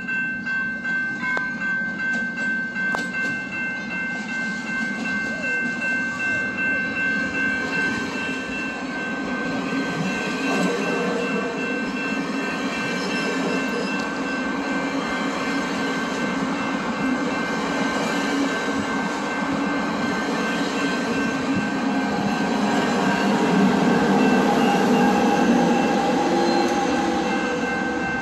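Train running past on the rails. The sound pulses about twice a second for the first several seconds, then turns into a steadier rumble that grows louder near the end.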